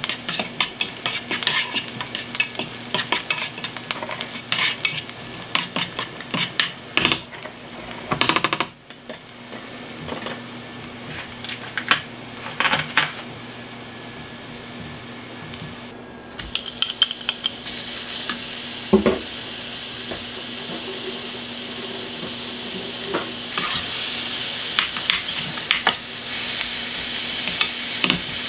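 Onion and garlic sizzling in oil in a nonstick frying pan while a spatula stirs them, with many quick clicks and scrapes against the pan in the first several seconds. The sizzle grows louder a little past halfway, with one thump soon after, and louder again near the end as ground beef fries and is stirred.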